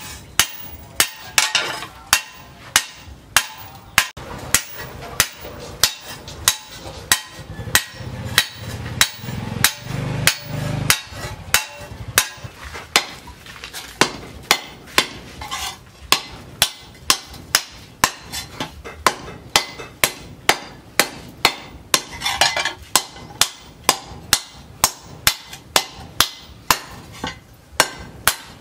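Sledgehammer blows on red-hot disc-plough steel held on a steel post anvil, struck about twice a second in a steady rhythm, each blow a sharp clang with a short ring: the blank's edge being hot-forged.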